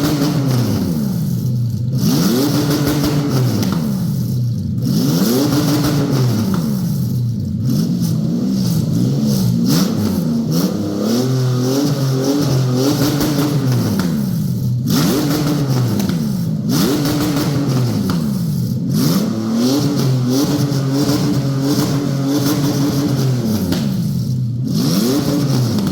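Toyota 1GZ-FE V12 engine free-revving with no gearbox fitted, worked through an electronic throttle pedal adapter. It blips up and falls back to idle about every two seconds, with a run of quick short blips in the middle and a longer held rev later on.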